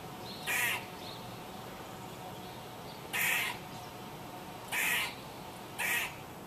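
Squirrel calling: four short, harsh, caw-like calls spaced unevenly, one to two and a half seconds apart.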